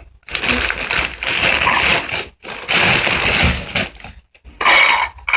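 A heavy 25 kg sack of oyster shells being lifted down and shifted: the sack rustling and the shells crunching inside it, in three noisy bursts.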